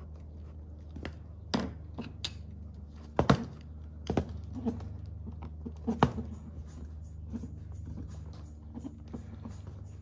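Stiff plastic air line tubing being handled and worked onto the brass fittings of an air-suspension control panel: a series of sharp clicks and knocks, most of them in the first six seconds, over a steady low hum.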